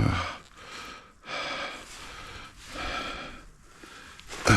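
A man breathing heavily close to the microphone, about three or four long, noisy breaths in and out.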